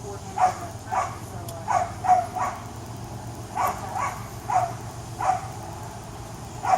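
A dog barking repeatedly in short, sharp barks, about ten of them in small groups, over a steady low hum.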